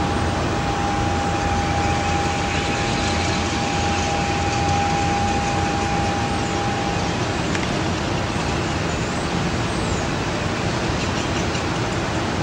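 Steady rushing background noise, with a thin steady high tone for roughly the first seven seconds. There are no bangs or booms to go with the flashes.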